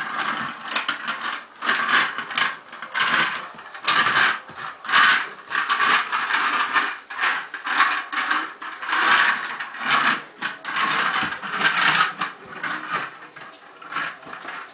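Small plastic toy truck pushed along hard floors by a toddler, its wheels rolling and rattling in a run of short pushes with brief pauses between them.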